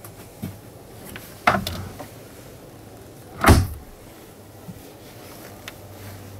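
Two dull thuds about two seconds apart, the second louder, with a few faint clicks around them, over a steady low hum.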